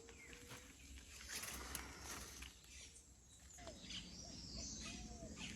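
Faint outdoor ambience: a few short bird calls in the second half, with scattered soft clicks and rustles.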